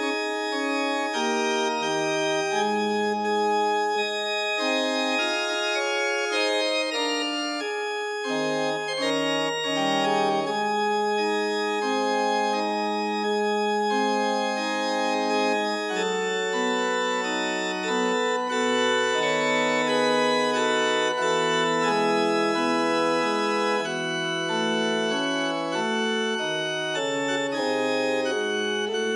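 Organ music playing slow, sustained chords, the harmony moving every second or two.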